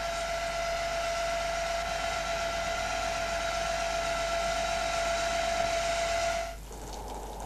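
Electric drive motor of a greenhouse shading screen running with a steady whine as it opens the screen. It cuts off suddenly about six and a half seconds in, giving way to rain falling.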